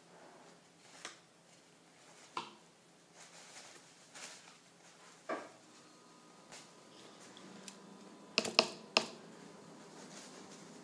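Light taps and clicks of paintbrushes and paint pots being handled while painting, with a quick run of sharper clicks about eight and a half seconds in.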